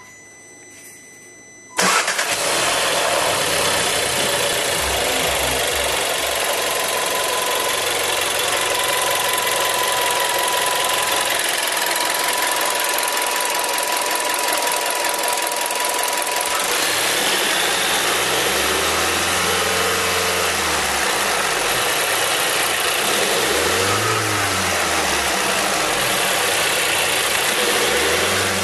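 SEAT Leon 1.4 TSI four-cylinder turbo petrol engine, at operating temperature, starting suddenly about two seconds in and then running steadily. In the second half, several short throttle blips make it rise and fall in pitch.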